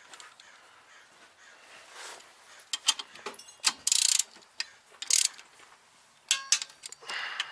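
Torque wrench ratcheting in short bursts of rapid clicks with pauses between, as bolts are run down and torqued to 47 foot-pounds.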